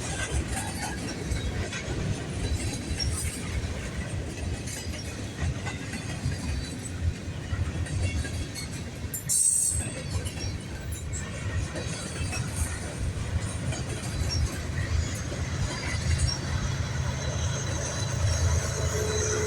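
Freight train cars rolling past with a steady rumble of steel wheels on the rails, and one brief sharp noise about halfway. Near the end a faint wheel squeal begins.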